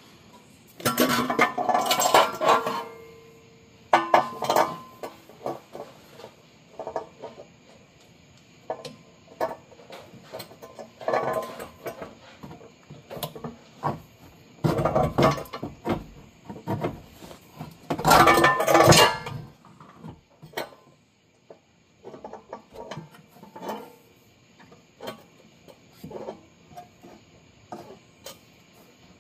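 Aftermarket stainless-steel axle-back exhaust pipe clanking and scraping against metal as it is worked into place by hand, in about five bursts of clatter with lighter clinks between.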